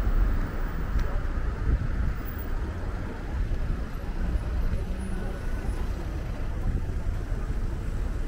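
Street traffic noise at a busy junction: a steady low rumble of cars passing.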